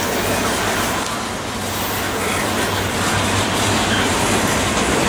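Freight train of covered hopper cars rolling past close by: a steady rumble of steel wheels on the rails.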